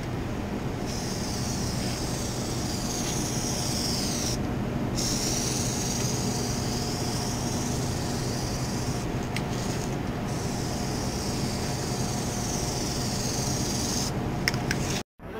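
Aerosol can of Plasti Dip spraying a second coat onto a car grille: a steady hiss in three long bursts, with short pauses about four and nine seconds in, over a steady low hum.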